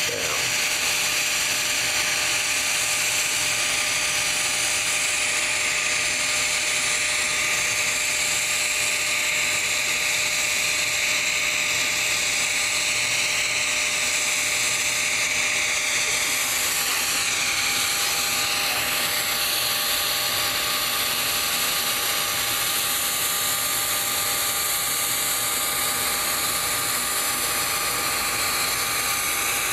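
TIG welding arc on a steel pipe running steadily as the cap pass is laid: an even, high-pitched hiss and buzz whose pitch wavers a little partway through.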